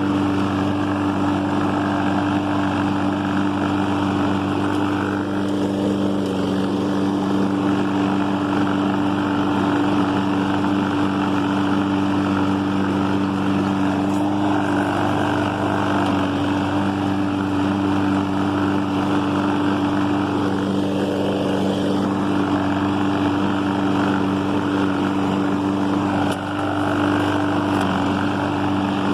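Husqvarna AWD self-propelled walk-behind lawn mower's gasoline engine running at steady speed while mowing, with only a brief dip in level near the end.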